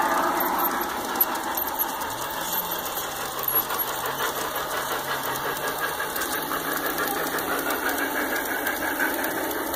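Large-scale garden model train running on outdoor track, a steady mechanical clatter of wheels and motor. A faint low hum rises about two seconds in and then holds.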